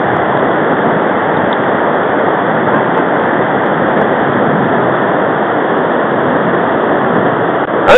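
Steady rush of river water running fast over rapids and pouring through a weir chute.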